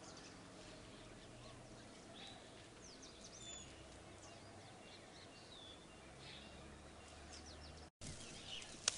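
Faint bird chirps and short whistled calls over a low, steady outdoor background. A brief drop-out comes about eight seconds in, after which it is louder, with a sharp click near the end.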